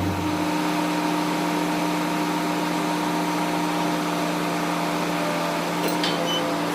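Borewell drilling rig's engine running steadily with a constant multi-tone hum; a deeper, louder drone drops away about half a second in, and a few light clicks come near the end.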